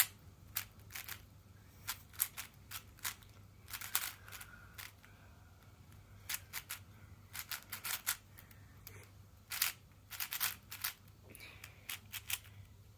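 A plastic 4x4 Rubik's cube being turned fast by hand, its layers clicking in quick, irregular runs of turns separated by short pauses, as the edges are paired up.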